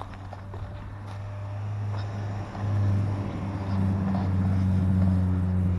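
A motor or engine running with a steady low hum, growing louder about halfway through.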